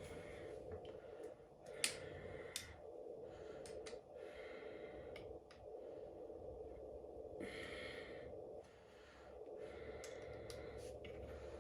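A person breathing near the microphone in several breathy stretches, with a few light clicks from handling, over a steady low hum.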